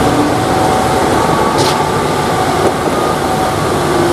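MAN concrete mixer truck running in street traffic: a steady engine drone with a brief hiss about one and a half seconds in.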